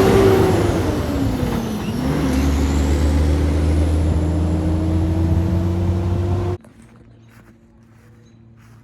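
Semi truck's diesel engine pulling away under load, its pitch climbing, dropping at a gear shift about two seconds in, then climbing again, with a high whine that follows the engine speed. The sound cuts off abruptly about six and a half seconds in, leaving only faint background noise.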